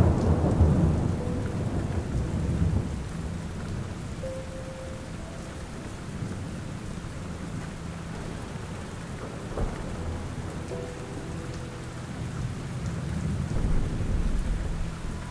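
Steady rain with rolling thunder: a long, deep rumble at the start that dies away over about three seconds, and a second rumble building up about thirteen seconds in.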